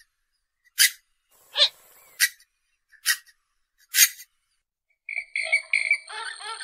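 Purple gallinule calling: five short, sharp notes a little under a second apart. About a second and a half before the end, a fast chattering run of repeated notes begins.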